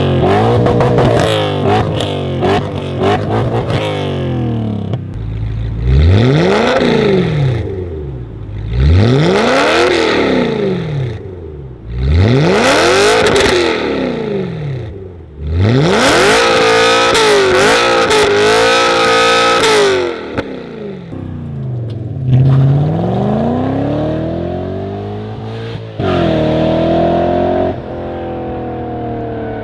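BMW V8 engine free-revved through its exhaust. Quick blips at first, then four sharp revs that rise and fall about three seconds apart, the last held high for several seconds, and slower revs near the end.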